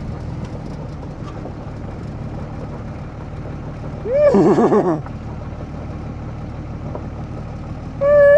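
A man imitating a horse's whinny twice, a few seconds apart, each call wavering and falling in pitch, over a pickup truck's engine idling steadily.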